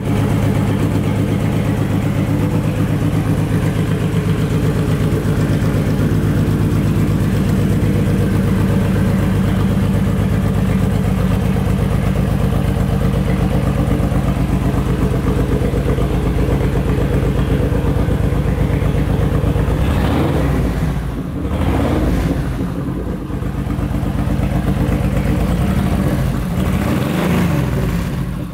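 Honda VTX1800's big V-twin engine idling steadily, then revved a few times in the last third, the pitch rising and falling with each blip of the throttle.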